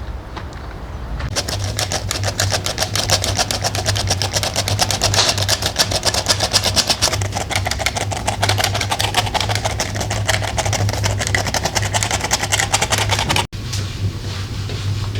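A small machine running with a rapid, even clatter of about ten clicks a second over a steady low hum. It starts about a second in and breaks off sharply near the end.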